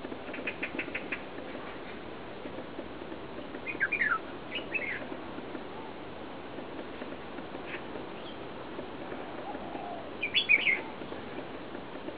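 Red-whiskered bulbul calling in short bursts of bright chirps: a quick run of about six short notes near the start, then louder falling chirps about four seconds in and a loud cluster near the end, over a steady low background hiss.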